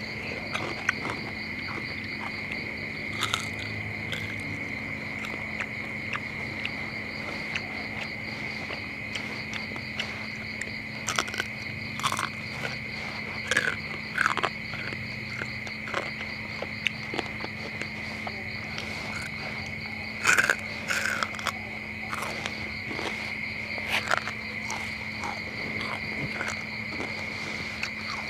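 Crickets chirping in a steady high trill throughout. Over it come crisp crunches and chewing as someone bites into crispy deep-fried frog close to the microphone; the loudest crunches come in clusters about 3, 11 to 14, 20 to 21 and 24 seconds in.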